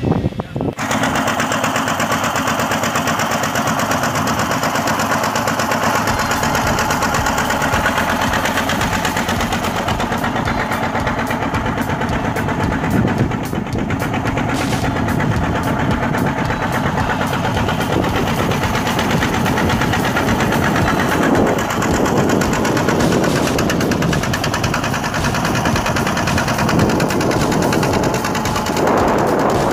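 Engine of a small wooden motorboat running steadily under way across open sea, starting about a second in.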